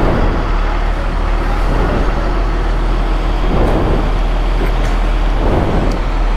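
Steady vehicle engine and road traffic noise with a constant low hum.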